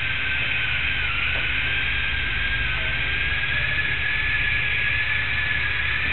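A steady high-pitched whine over an even hiss and a low hum, with the whine dipping slightly in pitch about a second in.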